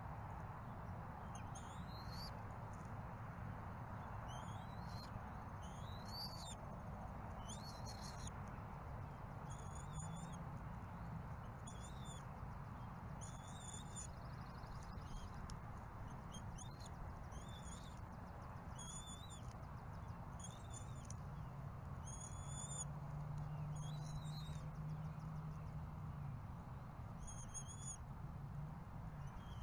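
A bird giving short, high-pitched chirps, a dozen or so at irregular intervals of one to three seconds, over a steady low hum.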